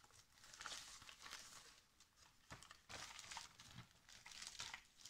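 Faint rustling and crinkling of a parcel's packaging being unwrapped by hand, in short irregular spells.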